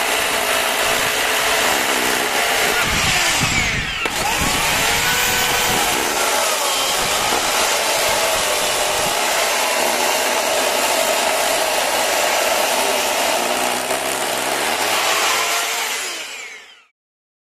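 A power tool running steadily with a wavering pitch, fading out and stopping shortly before the end.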